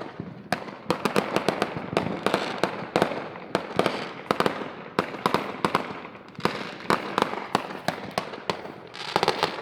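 Many fireworks going off at once: a continuous, irregular barrage of bangs and crackling pops, with a burst of rapid crackles near the end.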